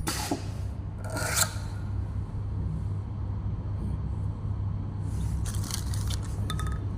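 Ultrasonic welding machine setup with a steady low hum, a brief scrape of plastic parts about a second in, and a run of short scraping strokes near the end that finishes in a short high-pitched squeal.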